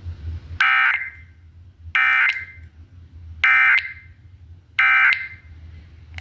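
Emergency Alert System end-of-message signal: four short bursts of warbling digital data tone, about a second and a half apart, marking the end of the alert. A faint low hum runs underneath.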